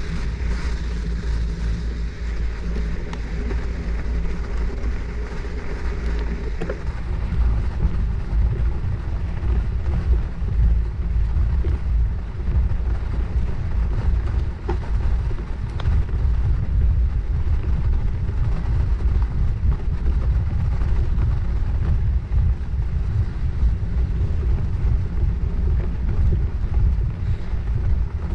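Wind buffeting the microphone of a bike-mounted action camera while riding, a steady rumble that rises and falls, with the bicycle's tyres rolling underneath.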